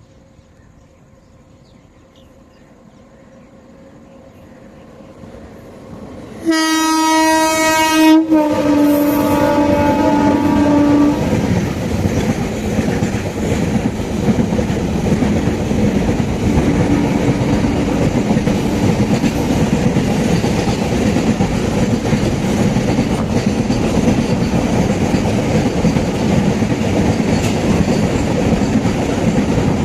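A train approaches with a faint, growing rumble, then its horn sounds loudly about six seconds in for some four seconds, briefly broken, its pitch dropping as the train passes. The train then runs past at speed, a loud steady rumble and rattle of wheels on rails.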